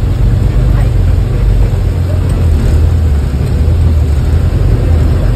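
Steady low rumble of a bus's engine and road noise, heard from inside the moving bus.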